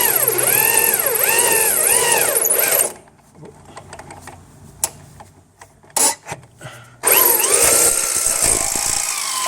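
Electric drill boring out a broken high-tensile steel bolt with a reground bit, its motor whine rising and falling repeatedly as it cuts. It stops about three seconds in, a few light clicks follow, and it starts drilling again about seven seconds in.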